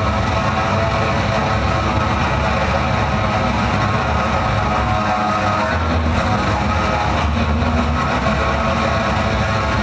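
Loud live electronic drone music over a club PA: layered held tones above a heavy low rumble, at an even level with no beat.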